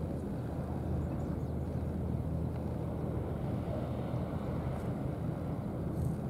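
Steady low engine hum from an unseen running engine, unchanging throughout.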